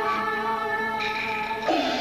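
Peking opera music in the erhuang mode: a bowed-string melody of long, held notes, with a sudden louder swell near the end.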